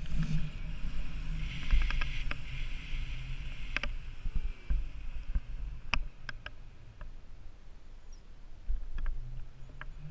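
Wind buffeting the microphone of a pole-held camera during paraglider flight: a low rumble that rises and falls, with a few sharp clicks scattered through it.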